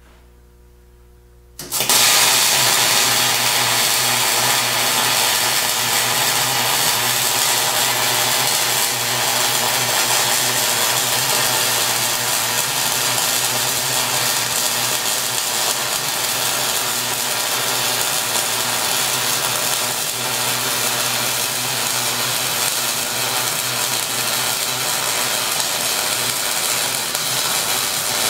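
MIG welder arc on a plow blade: a steady crackling hiss that starts suddenly about two seconds in and runs on without a break.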